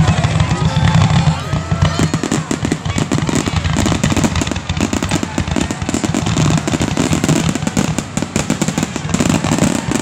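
Aerial fireworks shells bursting in a rapid, dense barrage. There are many sharp reports a second with crackling, getting busier about two seconds in.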